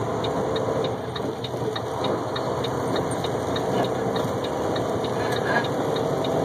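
Noise inside a semi-truck's cab on the move: the truck's engine running steadily under road and rain noise from wet pavement. A light ticking repeats about five times a second throughout.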